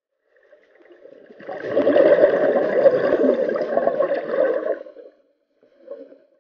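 Scuba diver's exhaled air bubbling out of the regulator underwater: one long rush of bubbles lasting about three and a half seconds, then a short smaller burst near the end.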